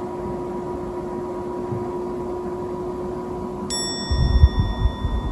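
A single bright bell-like chime rings out about three and a half seconds in and keeps ringing, over a steady room hum. Low muffled thumps follow it and are the loudest sounds.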